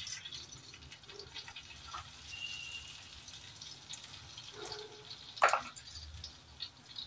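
Cumin seeds sizzling faintly in hot butter and ghee in an iron kadhai, with small scattered pops. There is a short louder sound about five and a half seconds in.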